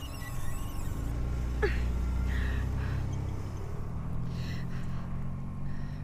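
A car's engine rumbling as it pulls away and fades, with a woman's strained, pained gasps and breaths over it.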